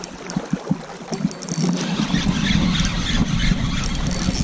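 Steady rush of river water with wind buffeting the microphone, and a few light clicks about half a second in.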